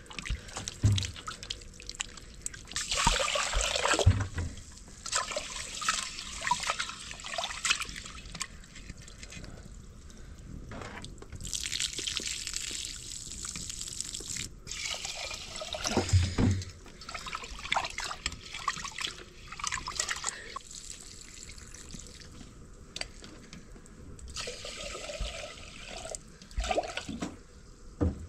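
Rice being washed by hand in an aluminium pressure cooker: water sloshing and swishing in repeated bursts, with a few dull knocks. Near the end, water is poured into the pot from a plastic jerrycan.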